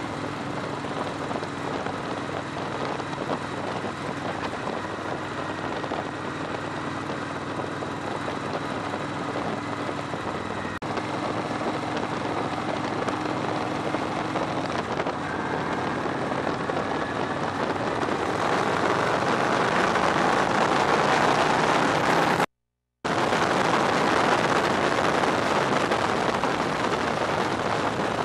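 Victory Hammer motorcycle's V-twin engine running on the road, mixed with wind rushing over the tank-mounted microphone. The wind rush grows louder about two-thirds of the way through, and the sound cuts out for about half a second near the end.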